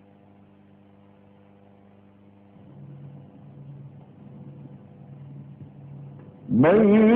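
A pause in a man's Quran recitation, holding only a faint steady hum and faint low sounds. About six and a half seconds in, the reciter's voice comes back loud on a long, held melodic note with ornamented turns.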